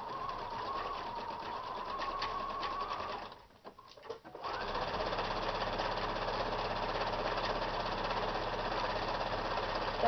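Electric household sewing machine stitching an overcast seam along a fabric edge. It runs for about three seconds, stops briefly, then starts again and runs fast and louder.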